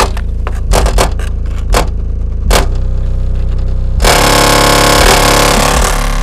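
Loud bass from a 10-inch PowerBass subwoofer playing in a car's trunk, heard at the rear of the car. The trunk lid and licence plate rattle in short bursts, then buzz continuously from about four seconds in.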